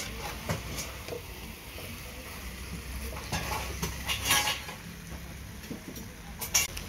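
Metal slotted spatula scraping and clinking against a frying pan while stirring braised tofu and coconut core. Scattered clicks run throughout, with a longer run of scraping from about three to four and a half seconds in and a sharp clink near the end.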